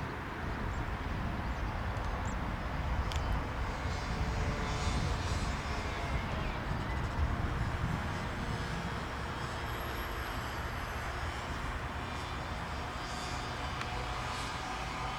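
Airbus A320neo jet airliner's Pratt & Whitney PW1100G geared turbofan engines running on the landing approach: a steady rumble with a faint whine over it.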